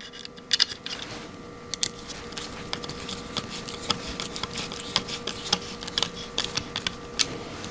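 Small Torx T10 screwdriver turning machine screws into a plastic 3D-printer extruder fan shroud, with scattered light clicks and ticks from the driver and the plastic parts being handled. A faint steady hum runs underneath.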